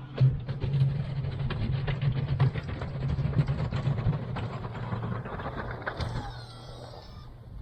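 Pickup truck engine running while plowing snow, with frequent clattering knocks over its steady hum that die away about six seconds in.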